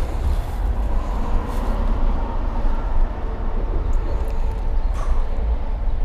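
Wind buffeting the microphone: a loud, low, fluttering rumble, with a faint steady hum behind it and a couple of light clicks about four and five seconds in.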